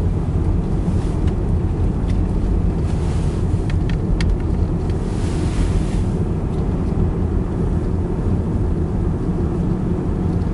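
Steady low rumble of a vehicle driving through a blizzard, with gusts of wind-driven snow swelling into a hiss a few times and a few faint ticks about four seconds in.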